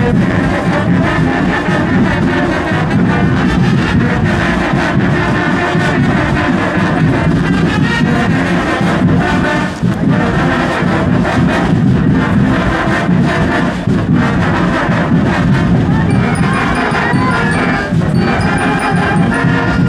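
A marching band playing continuously and loudly, with high bell-like notes joining near the end.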